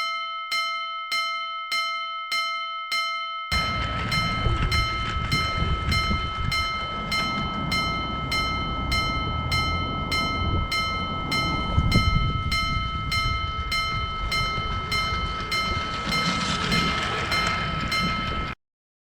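Japanese-style railroad crossing alarm ringing its repeated electronic 'kan-kan' at about two strikes a second. About three and a half seconds in, a train rumbles past while the alarm keeps ringing, and both cut off suddenly near the end.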